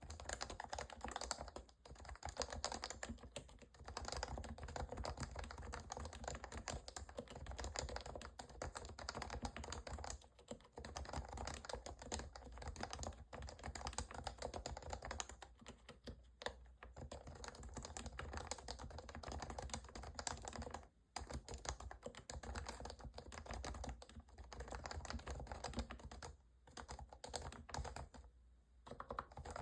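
Continuous fast typing on a lubed HHKB Professional Classic keyboard with Topre electrocapacitive switches, a dense run of keystrokes broken by a few brief pauses.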